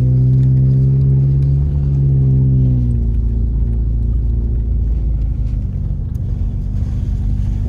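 Vehicle cabin sound while driving on a rough dirt road: a steady low engine and road rumble, with a droning hum over it for about the first three seconds that then fades away.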